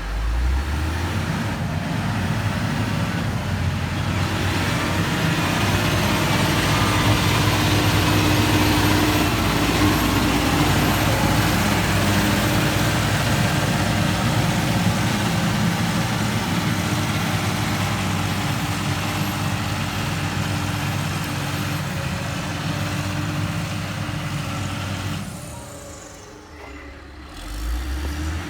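Diesel engine of heavy construction machinery running steadily under load, with a low hum and broad mechanical noise. The sound drops away for about two seconds near the end, then returns.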